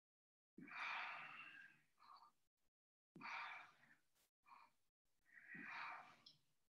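A person breathing audibly during a yoga exercise: three long, slow breaths about two and a half seconds apart, each followed by a short, quieter breath.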